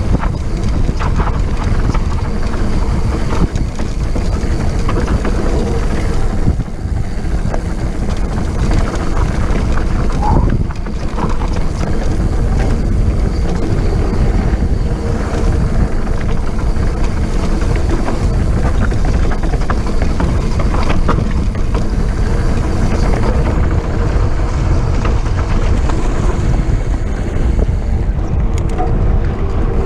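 Wind buffeting the microphone of a handlebar-mounted camera on a moving mountain bike, over the steady rumble of its tyres rolling on a dry dirt trail.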